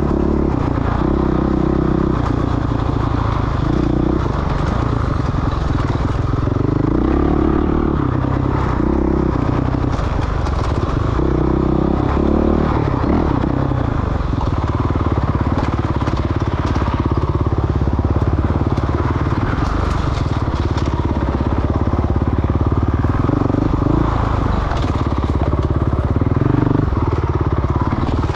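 Dirt bike engine ridden hard off-road, its pitch rising and falling again and again with the throttle and the gear changes, with scattered knocks and rattles over rough ground.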